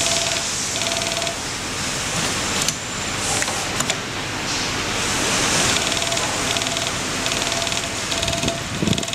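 JOOKE CNC template sewing machine stitching a label and strap tab onto bag material: the needle runs in fast, even stitches in short repeated runs over a steady machine hum. A few sharp clicks about three seconds in, and low thumps near the end.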